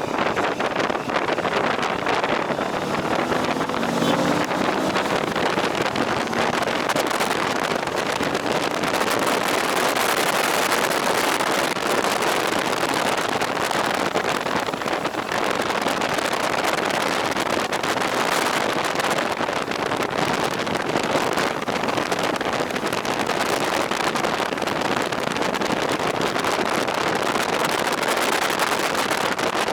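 Steady wind rush over the microphone of a moving motorcycle, with the engine running underneath. The engine rises briefly in pitch about three seconds in.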